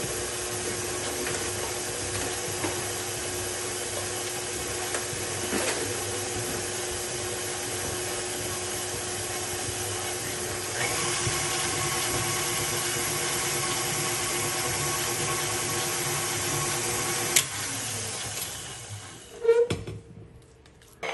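KitchenAid Artisan stand mixer running steadily, its flat beater creaming cream cheese and butter in the bowl. The motor gets a little louder about halfway through, gives a sharp click, then is switched off and winds down near the end, followed by a couple of short knocks.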